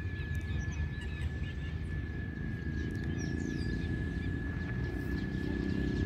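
Outdoor lakeside ambience: a steady low rumble that grows a little louder about halfway through, with a thin steady high-pitched tone and a few faint bird chirps above it.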